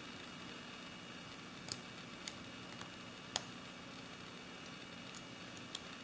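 Single-pin picking of a 7-pin Best padlock: a short hook and tension wrench working the pins in the keyway, giving about five small, sharp clicks at irregular intervals, the loudest a little past the middle.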